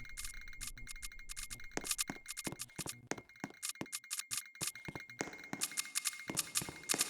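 Rapid, irregular clicking, several clicks a second, over a faint steady high tone, from fire alarm equipment under test.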